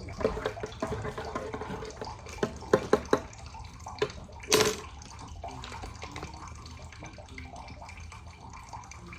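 Hot water being poured into a mug for hot chocolate, a steady trickle with several sharp clinks a few seconds in. A short, louder burst of noise comes near the middle.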